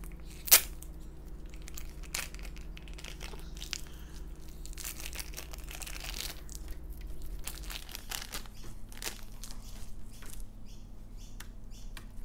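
Plastic bag crinkling and tearing as a yellow fluffy slime is unwrapped, then the slime handled and poked with soft crackles and clicks. One sharp click about half a second in is the loudest sound.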